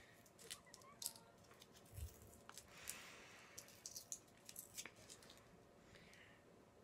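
Faint crinkles and clicks of a plastic wrapper being picked at and peeled off a sweet by hand, with a soft bump about two seconds in.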